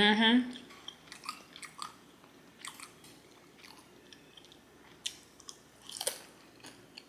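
Close-up chewing and lip-smacking of a mouthful of food, with wet mouth clicks coming at irregular intervals.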